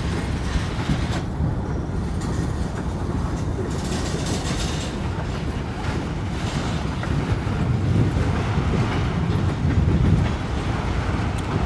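CSX local freight train's cars rolling past, a steady low rumble that holds throughout.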